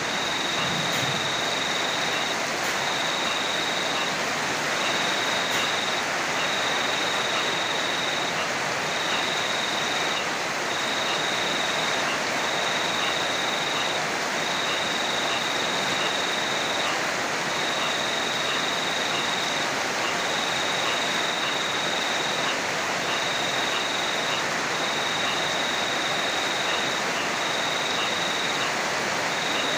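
Heavy rain falling steadily, an even hiss. Over it an insect trills at a high pitch in repeated bursts of about a second and a half, with short pauses between them.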